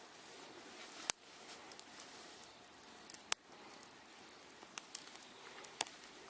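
Wood campfire crackling: two sharp pops, about a second in and a little after three seconds, and a few lighter snaps near the end.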